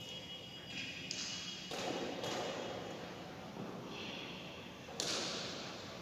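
A few knocks in a large, echoing hall: two about two seconds in and a louder, sharper one about five seconds in that rings on briefly, over faint room noise.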